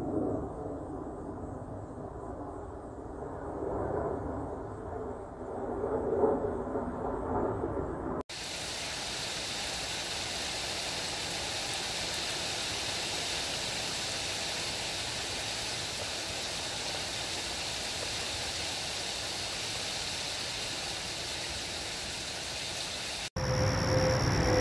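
Road traffic noise, mostly low, for about the first eight seconds; then, after a sudden cut, a steady even hiss across all pitches for about fifteen seconds. Near the end, cicadas singing with steady high buzzes.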